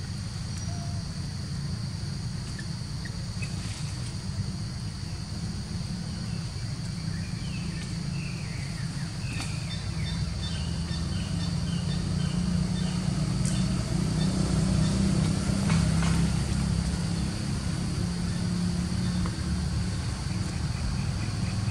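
Outdoor forest ambience: a steady low rumble, a constant high insect drone, and runs of short high chirps repeated several times a second, mostly around the middle and again near the end.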